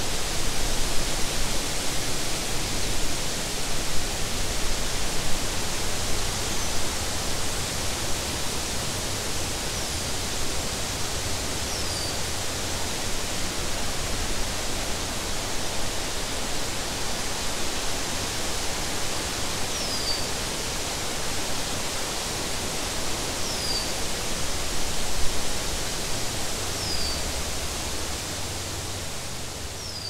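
Wind blowing through tall meadow grass and tree leaves: a steady rushing hiss with a gusty low rumble of wind on the microphone. Short, high, falling chirps, probably from a bird, come through now and then, about six or seven times, and the sound begins to fade near the end.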